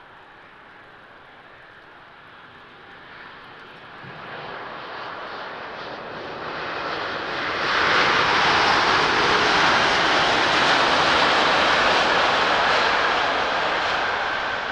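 Airbus A350-900 jet airliner with Rolls-Royce Trent XWB engines landing on a wet runway. Its engine noise builds over several seconds to a loud, steady rush as it rolls past close by, then starts to ease off near the end, with a steady whine running through the latter part.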